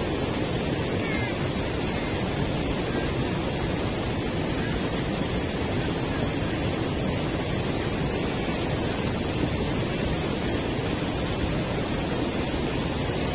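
Steady rush of river water pouring over a low concrete weir, an even noise that holds at the same level throughout.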